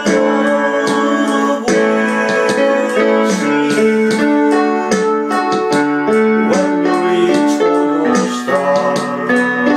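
Portable electronic keyboard played with a piano voice: a melody over held chords, with new notes struck every fraction of a second.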